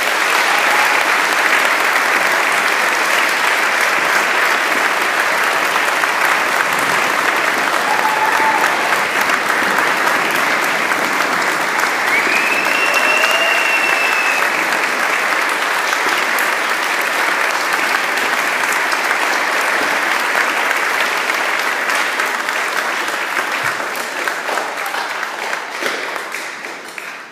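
Large audience applauding steadily in a big hall, the clapping thinning out and fading near the end.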